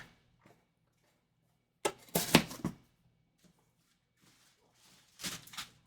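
Trading-card packs and their emptied cardboard box being handled: two short bursts of rustling and tapping, one about two seconds in and another near the end.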